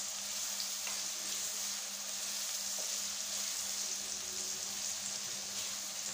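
Finely chopped onions sizzling steadily in hot oil in a non-stick kadai while being stirred with a silicone spatula, with a few faint taps of the spatula against the pan.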